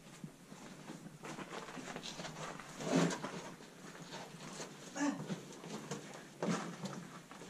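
A climber's shoes scraping and knocking against the rock walls as he hauls himself up a hanging rope. The scuffs are irregular, with a few louder ones about three, five and six and a half seconds in.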